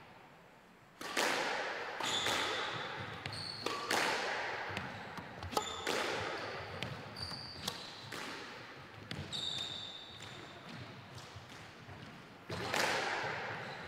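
Squash rally: the ball cracks off the rackets and the court walls every second or so, each hit ringing on in the hall, with short high squeaks of shoes on the wooden court floor in between.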